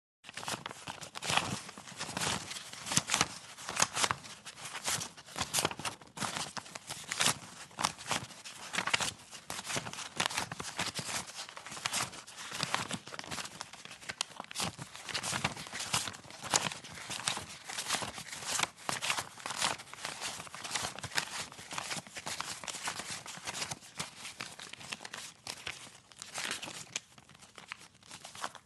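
Hands sifting and shuffling through a pile of paper currency bills: continuous crisp rustling and crinkling of banknote paper, with many quick sharp flicks.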